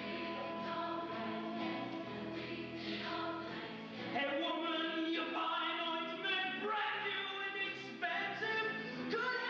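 Several voices singing together in a live stage-musical number, growing louder about four seconds in.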